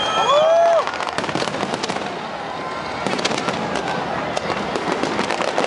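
Fireworks crackling and popping in a dense, rapid run of small bursts, with spectators calling out loudly in the first second.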